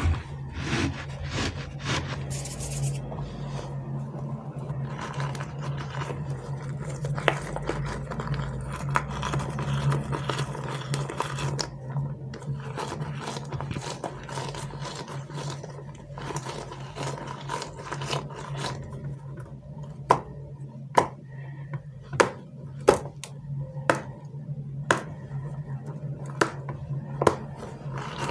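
Hands squeezing and rubbing a soft rubbery dragon squishy toy, giving rubbing and scraping sounds. In the second half come a run of sharp clicks, about one a second. A steady low hum runs underneath.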